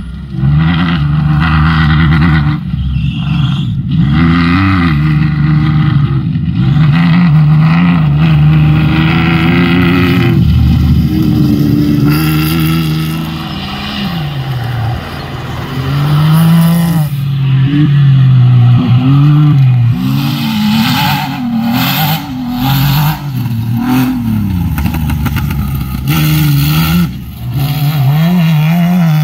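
Off-road race buggy engines revving hard, the pitch climbing and dropping again and again as the cars accelerate, shift and back off through the course, one car after another.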